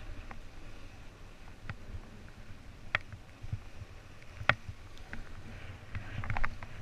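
Snowboard sliding and scraping over packed, tracked snow, with wind noise rumbling on the microphone. A few sharp clicks or knocks cut through, the loudest about four and a half seconds in, and a quick run of ticks near the end.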